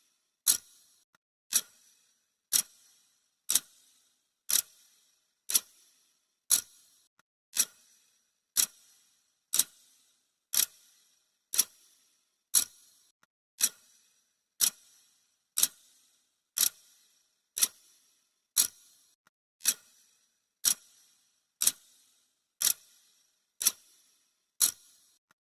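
Clock ticking sound effect: one sharp, dry tick each second, evenly paced, marking off the seconds of a countdown timer.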